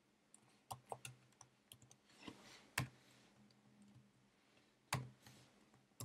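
Faint, irregular keystrokes and clicks on a computer keyboard and mouse, with a sharper click just under three seconds in and another about five seconds in.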